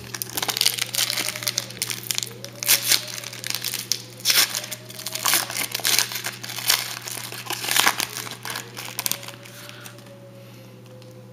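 Foil wrapper of a trading-card pack crinkling in quick crackles as it is opened by hand, easing off near the end.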